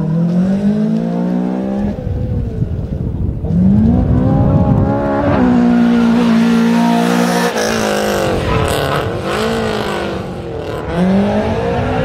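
Honda Civic hatchback's four-cylinder engine revving hard, its pitch climbing and dropping several times and held steady at high revs for about two seconds midway, with tyres squealing.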